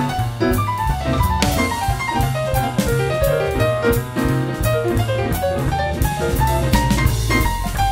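Background jazz music with piano and drum kit over a steady bass line.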